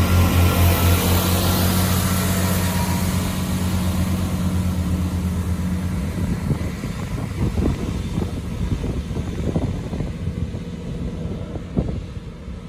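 GWR Class 165 diesel multiple unit pulling away, its underfloor diesel engines giving a steady pulsing drone that cuts out about halfway through as it draws off. Irregular low rumbles and knocks follow.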